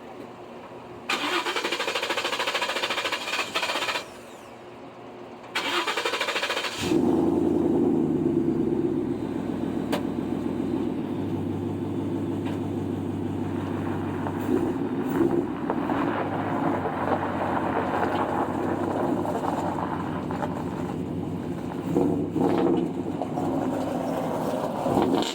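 An engine is cranked twice in short noisy bursts, catches on the second try, and settles into steady running.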